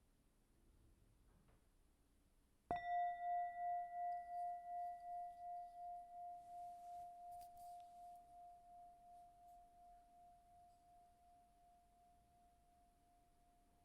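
A meditation bell struck once, about three seconds in, ringing one clear tone that wavers in loudness about twice a second and slowly fades, marking the end of the meditation.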